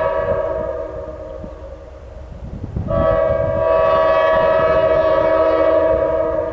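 Diesel freight locomotive's air horn sounding a long blast that dies away about two seconds in, then a second long blast starting about three seconds in, over a low rumble of the approaching train.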